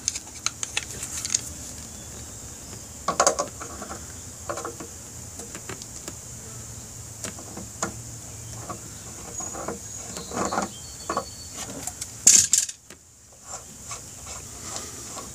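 Channel lock pliers gripping and turning a motorcycle oil tank's screw-on cap, with scattered metal clicks and scrapes as the tight cap is worked loose; the louder handling comes in clusters about three seconds in and again near ten to twelve seconds in, when the cap is turned by hand.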